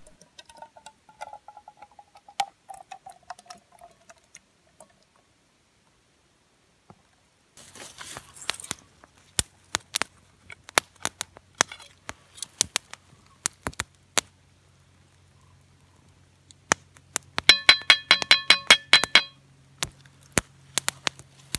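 Baked beans sliding out of a tin can into a cast-iron pot, with a thin metallic squeak and small clicks. After a short pause, a wood campfire crackles under the pot, with a burst of rapid clinking and crackling near the end.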